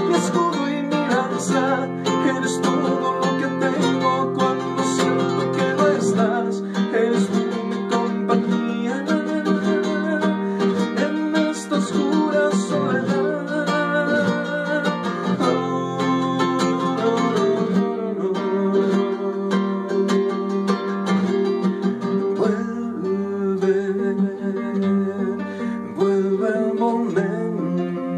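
Instrumental break of a song: guitar music with plucked chords under a wavering melody line, and no sung words.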